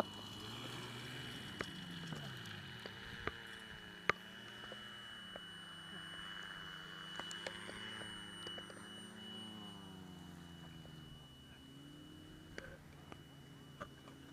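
Faint engine drone of a powered parachute flying some way off, its pitch slowly wavering up and down, with a thin steady high whine and a few light clicks.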